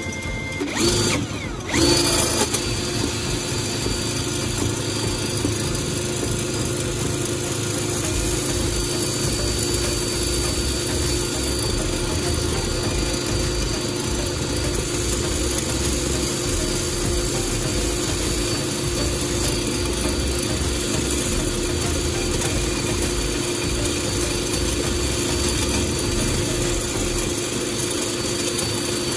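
A small power-tool motor running at a steady speed with a constant hum and a faint high whine, after two brief loud noises in the first two seconds.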